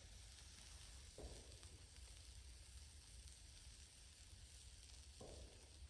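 Faint sizzling of a bison ribeye steak searing on a wire grill grate over hot charcoal, a soft even hiss.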